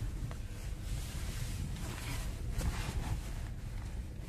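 Car running on the road, heard from inside the cabin: a steady low rumble of engine and tyres.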